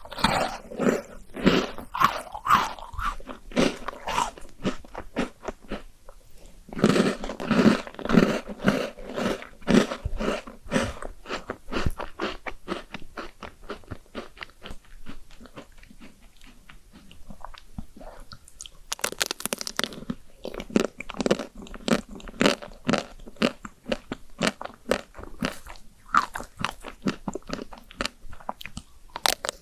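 Crunchy cookies being bitten and chewed close to the microphone: many crisp crunches in quick succession, which ease off for a stretch in the middle before coming back strongly.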